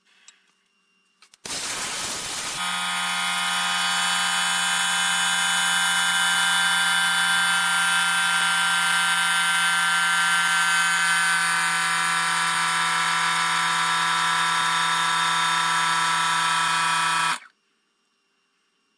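Woodshop power machine running steadily, a mix of fixed motor tones and a noise haze, starting after a short noisy burst and cutting off abruptly near the end.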